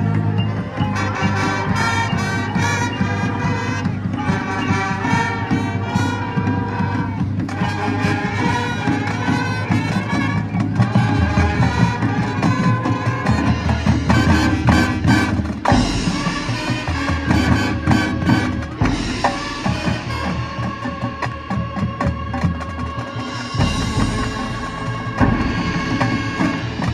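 High school marching band playing its halftime show music: brass and woodwinds over drums and front-ensemble percussion, with a heavier low bass coming in about eleven seconds in.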